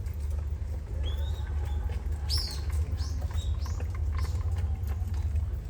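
Short high chirps from a small bird, about half a dozen, most of them bunched together in the middle stretch, over a steady low rumble.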